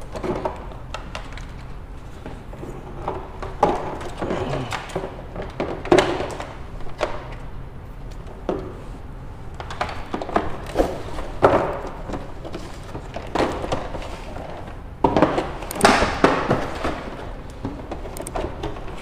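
Handling noise from plastic Commax video door-phone monitors, their protective film and cables: irregular knocks, thuds and rustling, busiest near the end.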